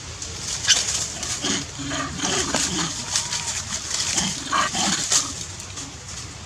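Macaques giving a run of short, harsh calls and grunts for about four seconds, fading out near the end.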